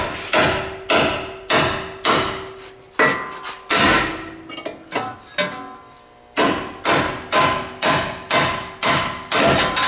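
Hand hammer striking the steel steering knuckle of a Dodge Ram 3500 to shock the ball joint tapers loose, the nuts left on the studs. About sixteen ringing metal blows, roughly two a second, with a pause of about a second and a half midway.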